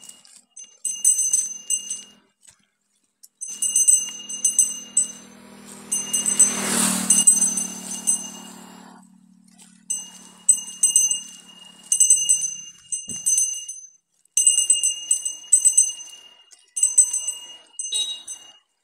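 A small bell ringing in repeated bursts of quick strikes, each burst lasting a second or two, about seven times. A louder rush of noise with a low hum swells and fades around seven seconds in.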